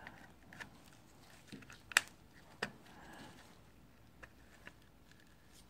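Light clicks and taps of a Makita power-tool battery pack being handled and pressed into its plastic casing, a few separate sharp clicks with the loudest about two seconds in.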